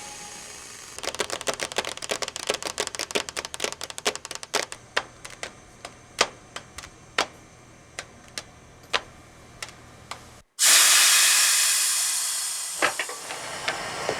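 Shoe-repair workshop work: a quick run of light taps that starts about a second in and gradually thins out. Then, after a sudden break, a loud spray-like hiss fades away over a couple of seconds.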